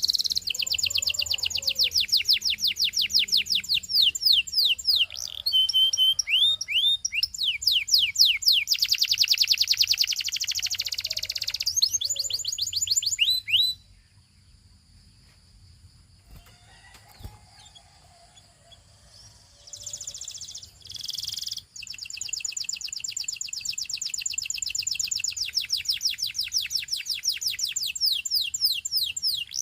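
Gloster canary singing: long runs of fast, evenly repeated high trill notes. The song breaks off about halfway for several seconds with only a few faint notes, then a long steady trill starts up again.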